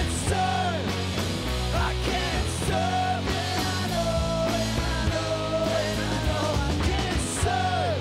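Live alternative rock band playing loud: electric guitars, bass and drums with cymbal crashes, with a sung vocal line and a long held note through the middle.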